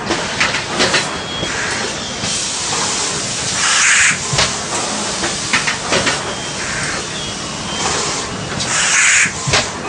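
MX-14G automatic thermoforming and stacking machine running: a steady clatter of clicks and knocks from its moving parts, with loud hissing blasts of air about four and nine seconds in.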